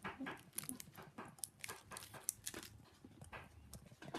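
Faint chewing and mouth clicks as a child eats a piece of chocolate, in scattered short crackles.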